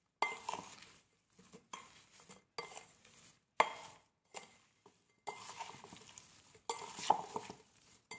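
Steel spoon stirring cut lemon pieces with ground rock salt in a glass bowl: repeated scraping strokes, roughly one a second, several of them opening with a sharp clink of the spoon against the glass.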